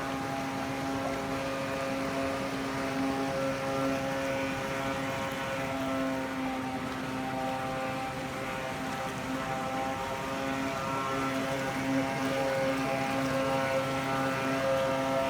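Homemade RC boat's motor and propeller running with a steady buzzing whine that wavers slightly in pitch.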